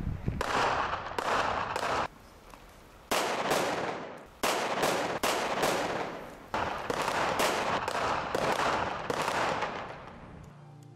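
Gunfire: volleys of rapid shots, several a second, each with an echoing tail. The shots break off for about a second near two seconds in, pick up again, and die away near the end.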